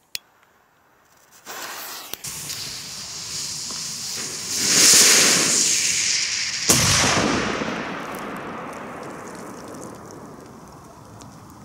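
A lighter clicks, then the Dum Bum Maxi firecracker's fuse catches and it hisses as it sprays sparks, the hiss building to loud over a few seconds. About seven seconds in comes a single sharp bang, and a hiss trails off slowly after it.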